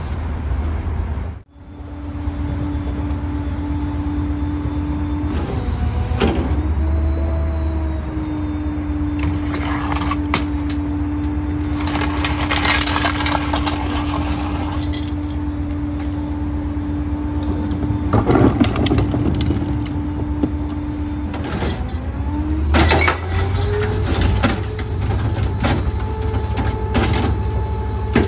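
Gaskin-bodied rear-loader garbage truck running at the curb, its engine and hydraulics giving a low rumble and a steady hum. The hum rises in pitch about three-quarters of the way through. Scattered clanks, knocks and rattles come as litter bins are handled and emptied into the hopper.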